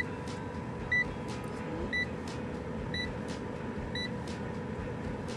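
Hamilton Beach air fryer beeping to signal the end of its cooking cycle: a short high beep about once a second, five times, getting quieter after the first two, over a steady hum.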